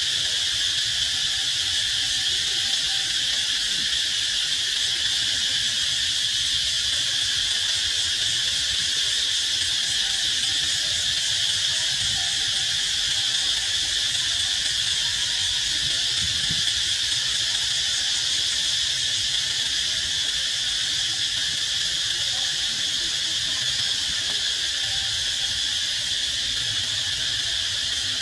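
Steady, high-pitched chorus of insects: a shrill, continuous buzz that holds unchanged in pitch and level.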